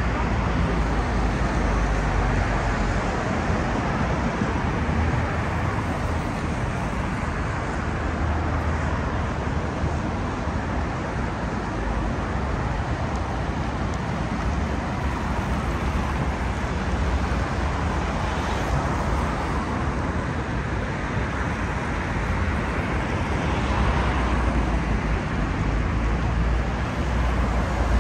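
Steady city road traffic: a continuous rumble of cars driving past on a busy street.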